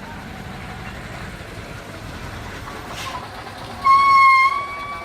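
Steady low rumble of a vehicle engine, then a loud horn blast about four seconds in, one steady tone held for about a second before it fades.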